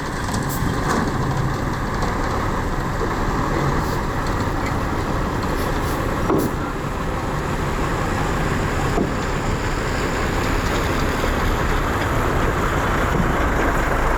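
Diesel engines of heavy earthmoving machinery running steadily, with one brief knock about six seconds in.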